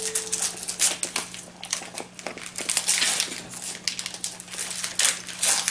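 Gift wrap and packaging crinkling and rustling in many quick, irregular crackles as small presents are unwrapped by hand.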